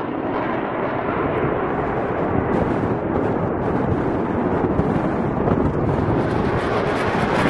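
Jet engine noise from a military fast jet flying low: a loud, steady rushing roar.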